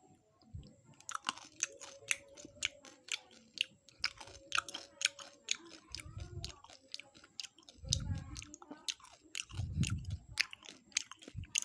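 Close-up eating sounds: candy being bitten and chewed with a rapid series of sharp crunches, and a few low dull thuds in between.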